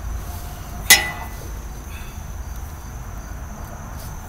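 A single sharp metal clink about a second in, a hand tool knocking against metal under the truck, with a brief ring after it. A faint steady high-pitched tone and a low rumble run beneath.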